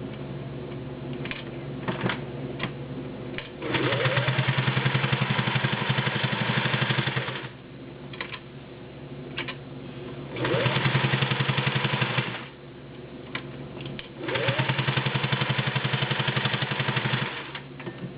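Singer Touch and Sew 603E all-metal gear-drive sewing machine stitching through four layers of leather in three runs of a few seconds each, the motor rising in pitch as each run starts. Scattered clicks fall in the short pauses between the runs.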